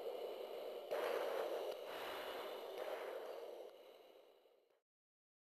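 Hiss of an open military radio channel with a faint steady whine behind it, fading and then cutting off abruptly near the end.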